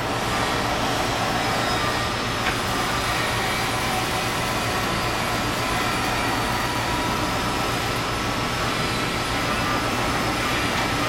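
Poreba PNA-80 large CNC lathe running under power: a steady mechanical hum with faint constant whines above it and a single light tick about two and a half seconds in.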